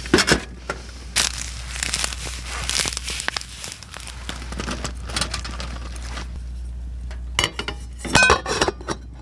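Crackling and popping from a wood stove's fire and the pan heating on top of it, with a cluster of metal clinks about seven and a half to eight and a half seconds in as a perforated splatter screen is set on the frying pan.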